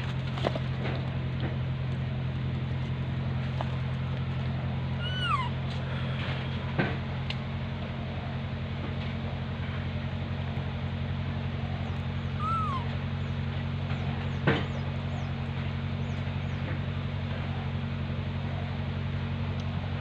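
Baby long-tailed macaque giving two short, high, meow-like calls that rise and then fall, one about five seconds in and another near the middle. A steady low hum runs underneath, with a couple of sharp knocks.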